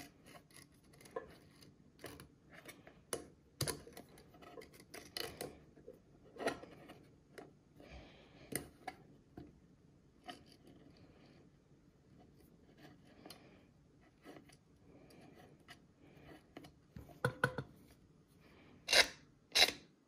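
Small metal clicks and scraping from the insert of a giant replica tabletop Zippo lighter being handled as its flint-spring screw is turned in. Scattered clicks throughout, with a cluster of louder clicks near the end.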